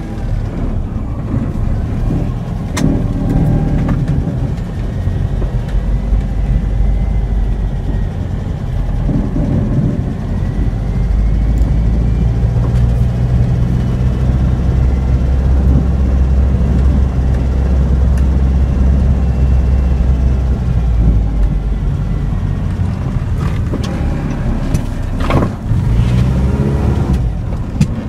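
Car driving on a concrete road, heard from inside the cabin: a steady low rumble of engine and tyres, with a couple of sharp knocks.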